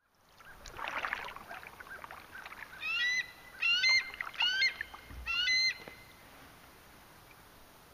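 Bald eagle calling: four quick bursts of high, rising chirps, each burst a rapid run of notes, with a brief noisy rustle about a second in.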